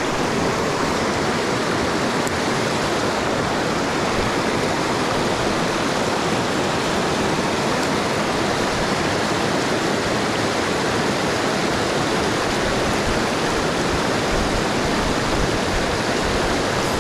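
Creek water rushing over rapids: a steady, even rush with no breaks.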